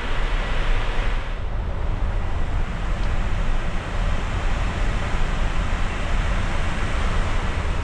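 Steady cockpit noise of an Airbus A350 in cruise: an even rush of air with a deep rumble underneath. The higher hiss drops a little about a second in.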